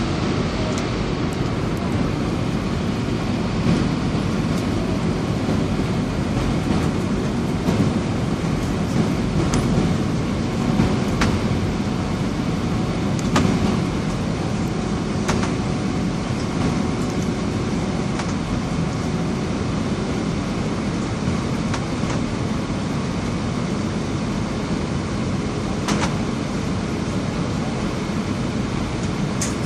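Airbus A320 cabin noise on final approach: a steady rush of airflow and engine noise with a faint steady hum through it, and a few small clicks or rattles.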